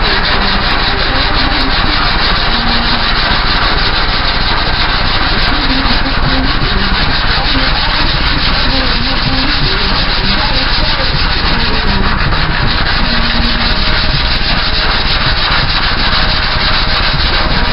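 Power sanding tool running steadily against the steel panel of a car tailgate, stripping the paint back toward bare metal.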